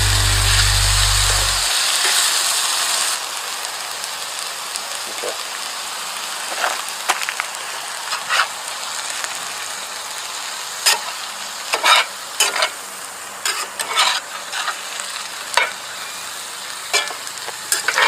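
Ground venison and vegetables sizzling in a skillet over hot coals, a steady frying hiss that is loudest for the first few seconds. Scattered sharp pops and crackles from about six seconds in.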